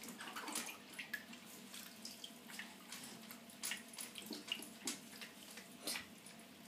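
Quiet, scattered small splashes and drips of bath water in a shallow baby bathtub as a hand washes the baby with a sponge.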